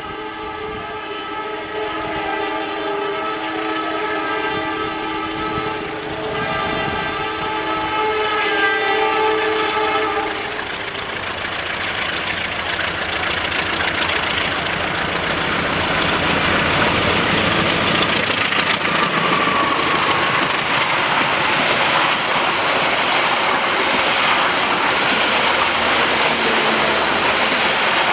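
Indonesian CC 203 diesel locomotive's multi-tone S35 horn sounding a long chord for about the first ten seconds. The passenger train then passes at speed, its wheels clattering over the rail joints, and grows louder toward the end.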